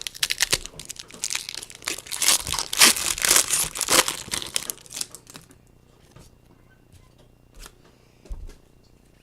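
Foil trading-card pack wrappers crinkling and tearing as packs are opened, a dense crackle for about five seconds, then only a few faint clicks.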